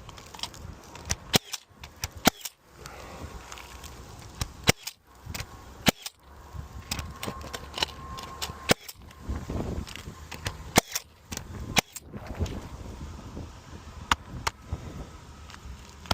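Pneumatic roofing nail gun firing nails into the roof, a string of sharp shots at irregular intervals, roughly one or two a second, with shuffling and handling noise between them.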